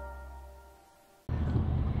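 Intro music of held, ambient tones fading out to near silence, then a sudden cut about a second in to the steady low rumble of a car driving, heard from inside the cabin.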